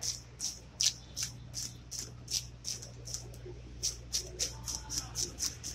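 A blade scraping the scales off a whole fish held on a wooden block, in quick rasping strokes of about three a second with a brief pause partway through.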